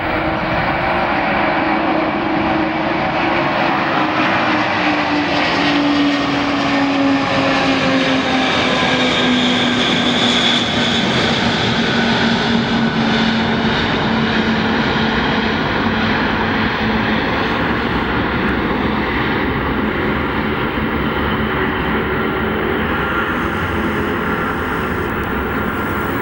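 Antonov An-225 Mriya's six Progress D-18T turbofans at climb power just after takeoff: a loud, steady jet roar with a whine whose pitch slowly falls as the aircraft passes overhead and flies away.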